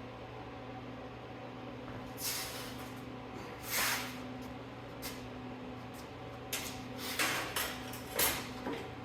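A string of short scrapes and knocks from gear being handled, over a steady low electrical hum.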